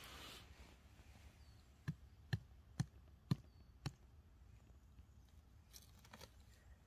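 A run of five short, sharp clicks, about two a second, over a faint low background.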